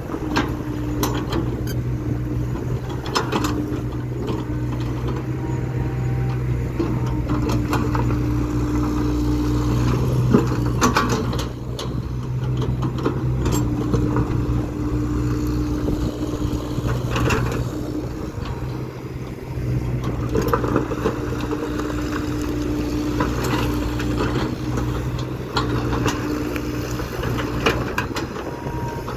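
Kobelco crawler excavator's diesel engine running steadily, with a whine that comes and goes every few seconds as the hydraulics work the arm and bucket. Scattered knocks and scrapes come from the steel bucket digging through broken stone.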